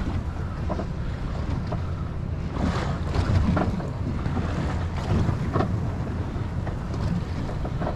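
Wind buffeting the microphone over water lapping against the hull of a drifting fiberglass center-console boat, with a few small slaps.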